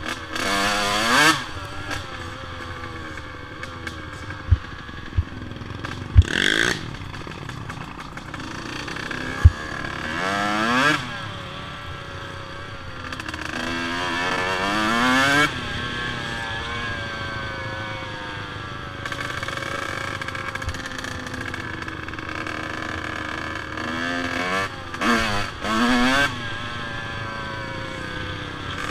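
ATV engine running, its pitch climbing as it speeds up and dropping as it eases off several times. A few sharp knocks come through in the first ten seconds.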